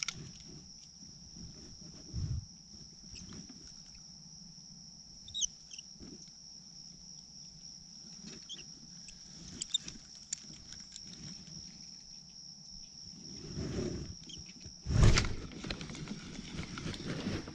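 A steady high-pitched insect drone over pond-side quiet, with scattered small knocks and bumps of gear being handled. About fifteen seconds in there is one loud thump, followed by louder rustling and handling noise.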